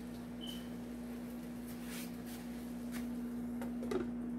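Diced potatoes, onions and peppers frying quietly in butter and bacon fat in a skillet, with a few faint crackles over a steady low hum. A glass pot lid is set down on the pan near the end.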